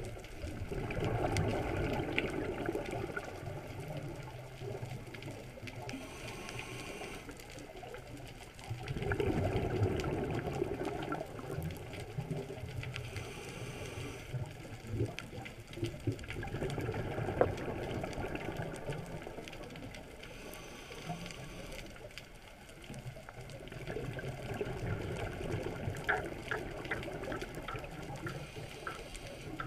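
Scuba diver breathing through a regulator, heard underwater: a bubbling rush of exhaled air about every seven seconds, with a short hiss of inhalation between each one.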